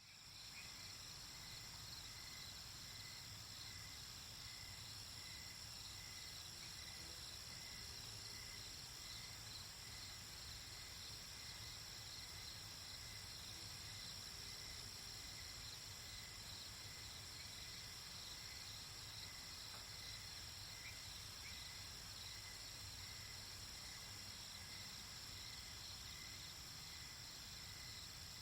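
Night ambience of crickets and other insects chirping in a steady, quiet chorus of high, continuous trills, with a fainter pulsing trill running underneath.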